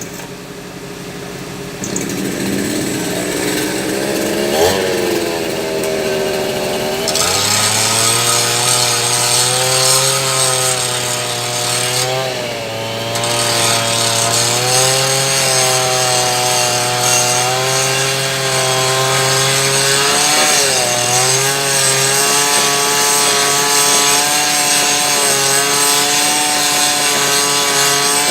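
Excavator's diesel engine and hydraulics working, the engine note rising and falling as the load changes. It picks up sharply about seven seconds in and stays loud after that.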